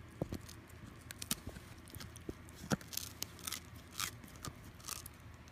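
Dog chewing on a rawhide chew: irregular crunches and clicks of teeth on the hide, about two a second.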